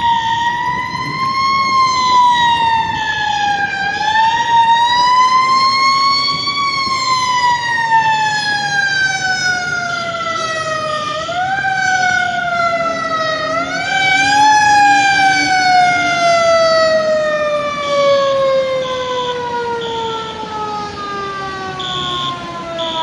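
Federal Q2B mechanical siren on a 1982 Hahn fire engine, wound up four times and coasting down between each in long falling wails. The last wail slides slowly down for most of the final ten seconds. A quieter, higher tone pulses on and off above it.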